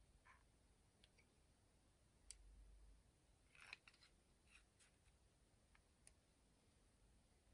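Faint clicks and taps of a vintage fountain pen's cap being handled and fitted onto the pen, against near silence. There are about a dozen small clicks, with the loudest cluster about three and a half seconds in.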